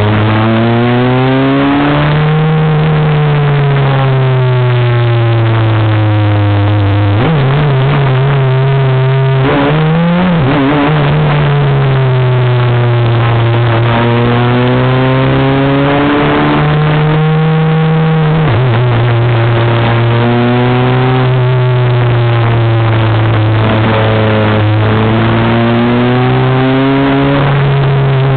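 Super FJ formula car's 1.5-litre Honda four-cylinder engine at racing revs, heard from the cockpit, its note climbing and falling through corners and straights. The pitch jumps suddenly at gear changes, once about seven seconds in and again a little past halfway.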